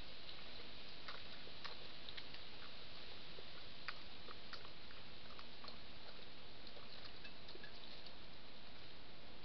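Steady hiss from a trail camera's microphone, with faint, irregular clicks and crunches as a European badger feeds with its snout down in bowls.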